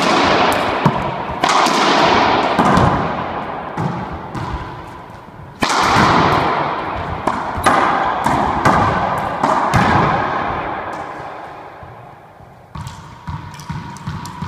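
Racquetball rally: sharp cracks of the ball off the racquets and the court walls, each followed by a long echo in the enclosed court. The hits die away about three quarters of the way in, with a few lighter ticks near the end.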